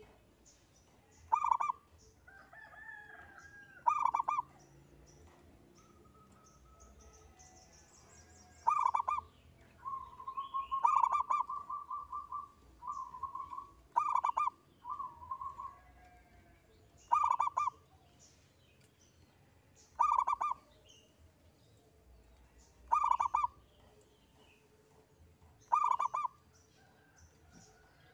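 Zebra dove (perkutut) cooing in the single-phrase 'engkel' style: short coos repeated about every three seconds, nine in all, with a longer run of quick repeated notes about ten seconds in. Faint chirps from other small birds sit behind it.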